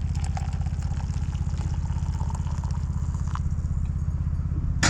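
An engine idling with a steady, fast low throb that cuts off suddenly near the end, just after a short knock.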